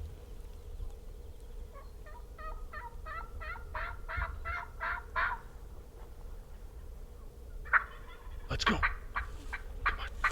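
Turkey yelping in a run of about a dozen notes that grow louder, followed about eight seconds in by louder, rough turkey calling that includes a gobble.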